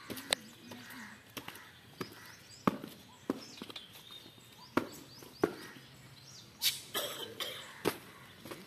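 Booted footsteps of cadets marching on a dirt parade ground: sharp, separate stamps every half second to a second, over faint outdoor background noise.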